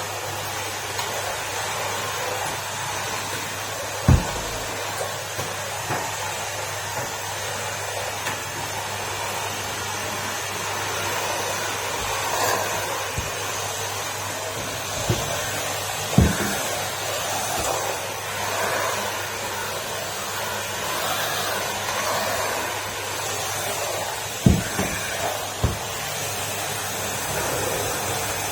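Numatic Henry cylinder vacuum cleaner running steadily, with a few sharp knocks over the top: one about four seconds in, one mid-way and two close together near the end.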